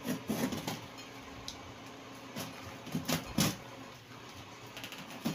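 Hands working at a taped cardboard shipping box to open it: a handful of short scrapes and knocks of cardboard and packing tape, the loudest about three seconds in.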